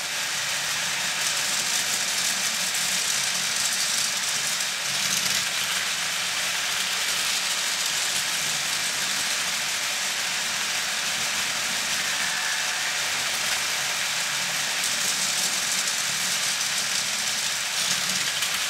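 Battery-powered toy Thomas the Tank Engine train from a Takara Tomy track set, its small electric motor running steadily as it travels around its plastic track.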